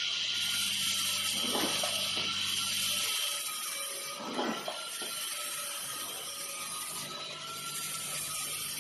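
Shoelace terminal crimping machine running with a steady hum and hiss, a short mechanical stroke sounding about every three seconds as it works through its cycle.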